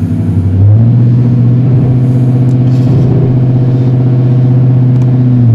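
2012 GMC Sierra 1500's 5.3-litre V8 under a brake stand with brake and accelerator floored. The engine note climbs in the first second and holds at steady revs without climbing further, then drops off at the end. The tyres do not break loose, no burnout, though the tune has traction control and StabiliTrak turned off.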